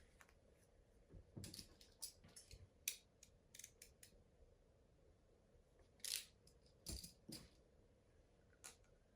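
Faint scattered clicks and light rattles of small hard objects being handled, in short clusters from about a second and a half in, around six to seven and a half seconds, and once near the end.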